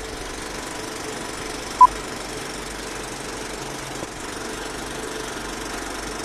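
Film projector running steadily under a countdown leader, with a single short high beep just under two seconds in: the 'two-pop' sync beep of the countdown.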